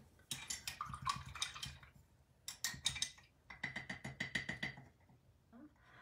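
Rapid light clicking taps, several a second, in three short runs with a faint ringing tone.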